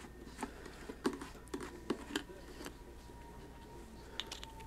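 Light, irregular plastic clicks and ticks of a screw cap being twisted off a plastic gallon jug.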